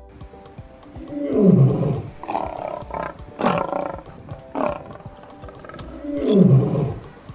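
A big cat roaring, likely a sound effect: two long roars, about a second in and near the end, with shorter growls between. Background music plays underneath.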